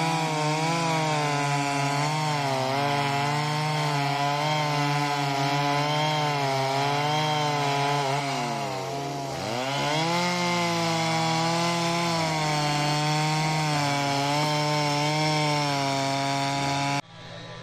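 Chainsaw running at high revs, its pitch wavering as the throttle changes; about eight seconds in the revs drop sharply as it bogs down cutting into wood, then climb back up. The sound cuts off suddenly near the end.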